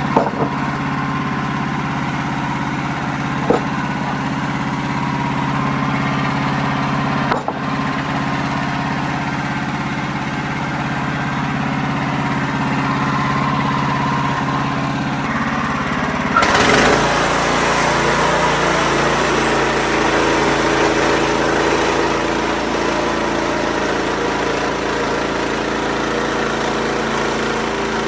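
WoodMizer LX55 portable band sawmill's engine running steadily. A little over halfway through, the sound shifts and grows louder and harsher.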